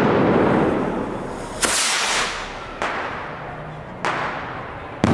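Firework bangs: four sharp reports about a second apart, each trailing off in a long echo.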